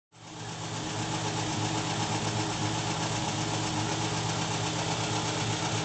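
Fiat 1100's 1100 cc four-stroke carbureted petrol engine idling steadily.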